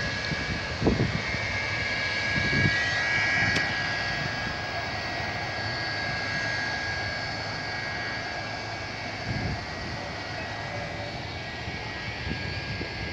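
A jet airliner's engines whining steadily after landing, with a high, even whine that swells a little a few seconds in. Wind buffets the microphone a few times.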